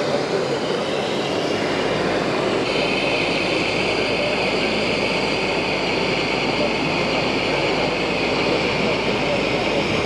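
Steady din of a busy exhibition hall. About three seconds in, a faint high whine joins it, from the radio-controlled model tractors' drive motors.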